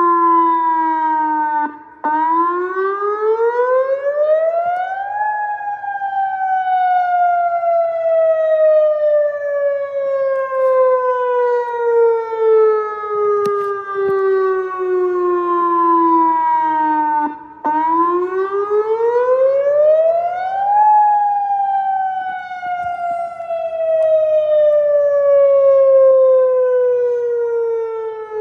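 Outdoor tornado warning siren sounding a wail during a test: its tone rises over about three seconds, then falls slowly for about twelve. The cycle plays twice, with a brief break just before each rise.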